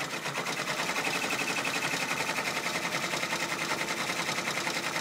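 Brother PR655 multi-needle embroidery machine stitching at speed, its needle bar clattering in a rapid, even rhythm of stitches.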